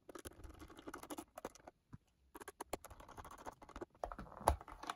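Small screwdriver turning out a screw from the plastic back case of a Sanyo M4430 cassette player: faint scratchy clicks and ticks, with one sharper click about four and a half seconds in.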